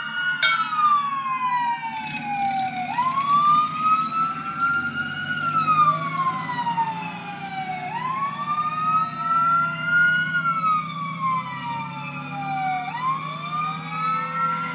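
Fire apparatus siren wailing, its pitch rising and falling slowly about every five seconds, sounded as a salute at a firefighter's funeral. A low engine rumble runs underneath.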